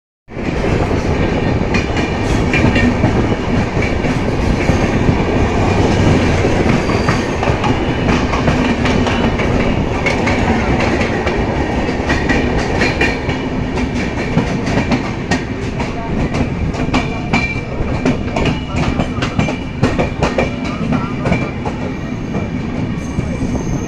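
Train running close by at speed: a steady rumble with wheels clacking over the rail joints many times, easing slightly in the second half.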